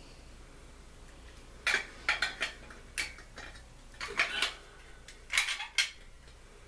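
Small hard objects being handled, with sharp clinks and rattles in four short clusters about a second apart, starting about one and a half seconds in.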